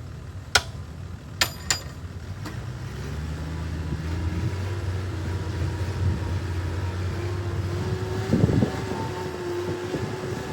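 Heavy diesel engine of earthmoving machinery growing louder and running steadily under load, with a few sharp metal clanks in the first two seconds and a heavy clunk about eight seconds in.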